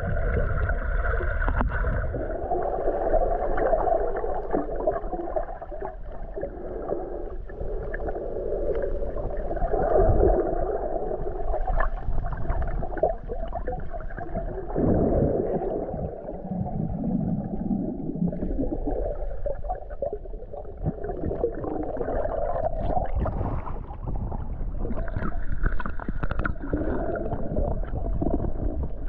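Underwater sound picked up by a submerged camera: muffled churning and gurgling of water, with scattered small clicks.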